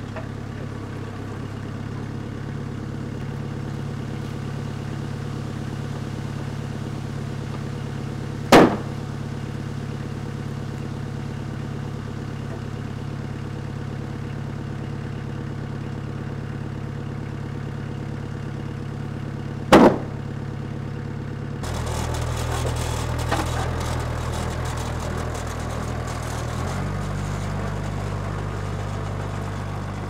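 Compact tracked loader's engine idling steadily, with two sharp knocks about eleven seconds apart. About two-thirds of the way through, the engine note changes and gets a little louder.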